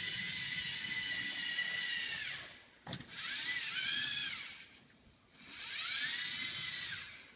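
Electric motors and gears of a tracked LEGO Mindstorms robot whining as it drives, in three runs, each rising in pitch as the motors speed up and falling as they slow to a stop. A short click comes between the first two runs.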